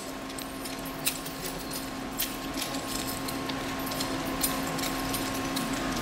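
Small sharp clicks of a Pentax DSLR's buttons and control dial being pressed and turned, scattered about a second apart, over a steady low hum.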